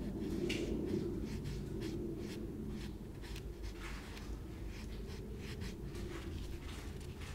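Sponge rubbing and dabbing wet plaster onto a carved diorama wall surface: an irregular series of soft, scratchy strokes, a few a second.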